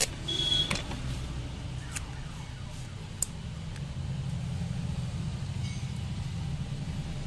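Steady low background rumble, with a few light clicks and taps from hands handling the phone and its tape in the first seconds.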